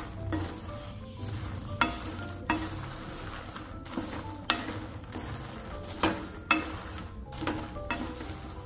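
Wooden spatula stirring and tossing puffed makhana (fox nuts) in a nonstick pan as they roast. It makes a light rustling and scraping, in repeated strokes one or two times a second.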